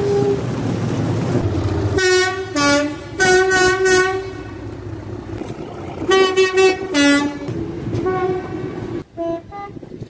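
Locomotive two-tone horn sounded in repeated blasts, alternating high and low notes over the low running of the approaching train. There is a long pair about two seconds in, a string of short toots just after, another pair around six seconds, and fainter toots near the end.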